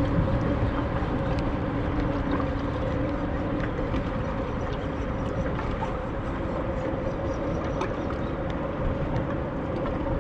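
Steady hum of a boat engine over a constant wash of wind and water.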